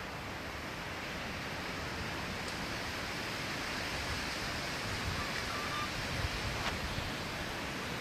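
Wind blowing through the trees: a steady rushing noise that swells slightly about halfway, with a few low bumps of wind on the microphone.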